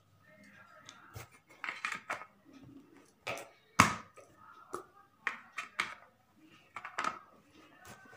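Gold jewellery being handled: irregular small clicks and knocks, the loudest about four seconds in.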